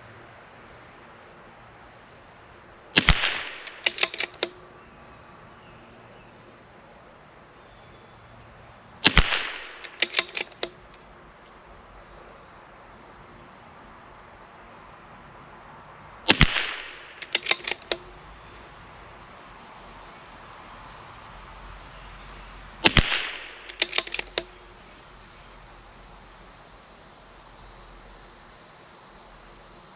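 Four shots from a CZ 457 MTR bolt-action .22LR rifle firing subsonic SK Rifle Match ammunition, spaced about six seconds apart. Each shot is followed within a second by a quick run of clicks from the bolt being cycled. A steady high-pitched insect buzz runs underneath.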